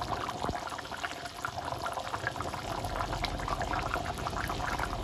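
Potato pork curry simmering in the pot, the thick sauce bubbling with a steady scatter of small pops.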